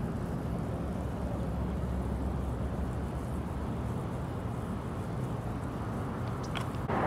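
Steady low outdoor rumble with a faint hum in it, with a brief faint high chirp about six and a half seconds in. Just before the end it gives way to a louder, brighter hiss.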